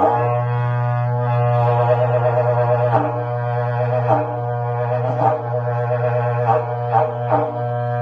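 Berrante, a Brazilian cattle horn, blown in one long low note that wavers briefly several times.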